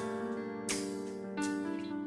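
Background music: a light tune of plucked guitar and keyboard notes over a steady beat.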